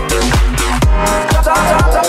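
Electronic dance-pop music with a deep, pitch-dropping kick drum about twice a second under a bouncing melody of short, chopped notes.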